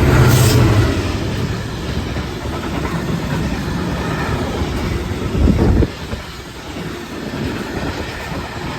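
Train passing at the lineside, its wheels clattering over the rails. A loud low drone at the start gives way to a steady rumble, which drops off suddenly about six seconds in.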